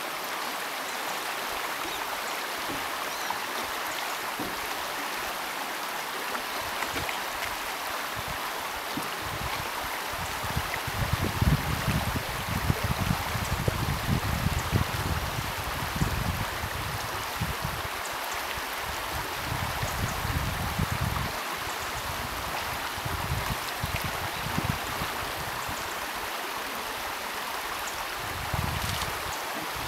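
Steady rushing of a shallow river flowing over gravel, with an uneven low rumble that comes and goes through the middle and again near the end.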